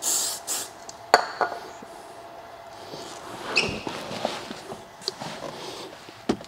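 Short hiss of an aerosol silicone spray being sprayed onto the odometer gauge's rubber seal to lubricate it, followed by a sharp click about a second in and scattered handling knocks and rustles.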